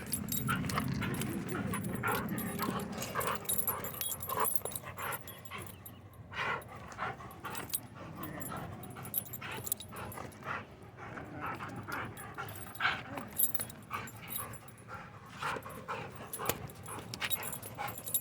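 Dogs barking and yipping, short sharp calls scattered irregularly.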